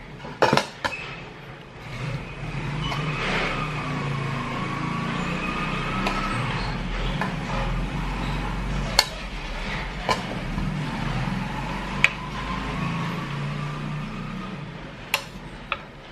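Metal spoons clink sharply against a ceramic plate and bowl as rice is served, a handful of separate knocks. Beneath them, a steady motor-like rumble with a wavering whine swells up about two seconds in and fades near the end.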